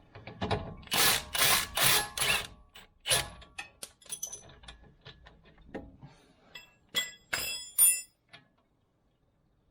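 Hand tools working on the Jeep XJ's sway bar fastenings to disconnect it: a quick run of four harsh rasping strokes, then scattered clicks and clanks, and two or three ringing metal clinks.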